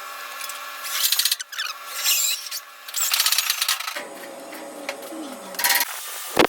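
Metalworking tool on car body steel in three short rasping bursts, about a second apart.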